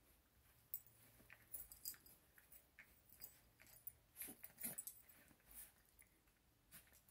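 Faint scuffling of two small dogs play-wrestling on a bed: soft rustling of the bedding and scattered small clicks, with a few louder moments about four to five seconds in.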